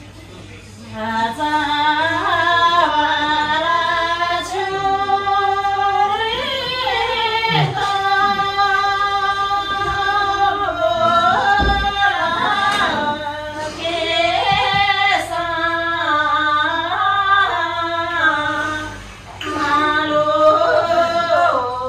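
A woman singing a slow melody, holding long notes and sliding between them, with a short break near the end.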